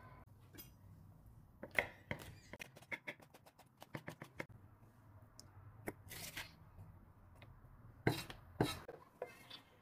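Kitchen food-preparation handling: irregular sharp clicks and knocks of utensils and vegetables, with a quick run of taps in the middle and the loudest knocks near the start and near the end.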